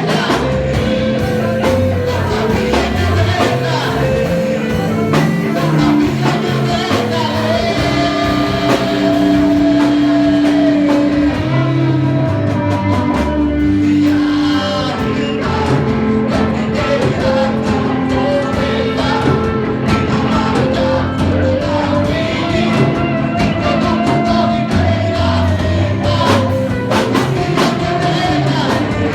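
Live worship band playing a gospel song: a singer holding long sung notes over electric guitar, bass and drum kit.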